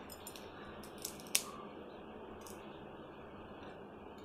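Crisp deep-fried maida and semolina spiral snapped and crumbled between the fingers: several short brittle cracks, the sharpest about a second and a half in. The snack is fried hard and crunchy.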